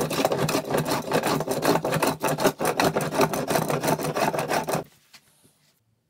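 Vintage Anchor hand plane set up as a scrub plane, driven in quick, rapid strokes across a softwood board, taking thick shavings about 1.5 mm deep. The cutting stops abruptly about five seconds in.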